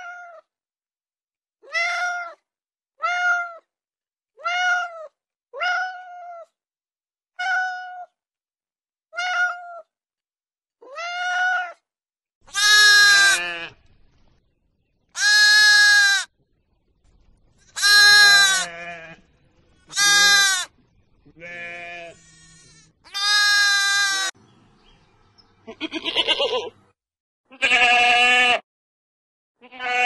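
A cat meows about eight times, each call short and falling in pitch. About twelve seconds in, sheep and goats take over with long, loud, trembling bleats, one after another.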